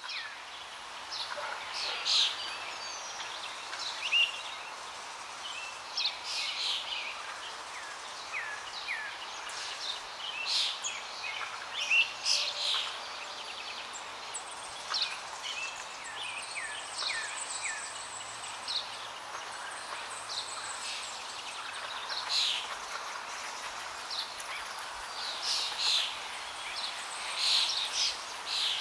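Small birds chirping, many short quick calls scattered and overlapping, over a steady background hiss.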